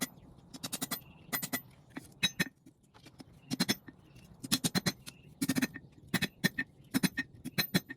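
Light hand-hammer blows on hot steel on an anvil, in quick clusters of two to four ringing strikes about a second apart, as a small forged pendant is flattened and straightened.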